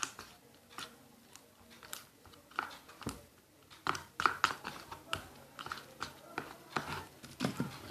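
A spoon stirring a sticky mixture of white glue and body scrub in a container as it thickens into slime: irregular clicks, scrapes and wet squelches.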